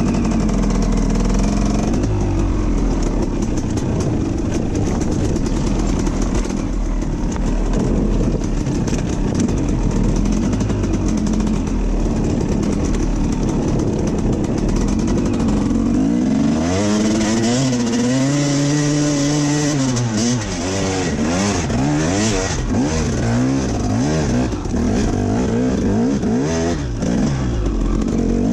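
KTM 250 EXC enduro motorcycle engine running under load on a dirt trail, its revs rising and falling as the throttle is worked. In the last dozen seconds the pitch swings up and down repeatedly as the bike climbs a hill.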